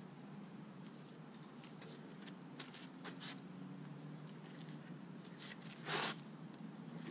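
Faint hand-handling noises from a walk-behind mower: a few light clicks and taps as the engine and frame are gripped and moved, then one short scuff about six seconds in.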